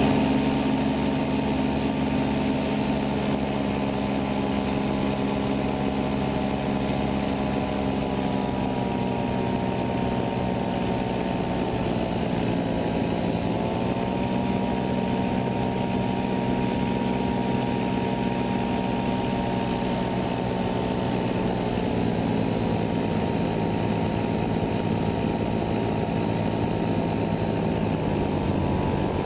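Paramotor engine and propeller running steadily at cruise power, heard up close from the pilot's seat in flight. The pitch dips slightly about halfway through and again near the end.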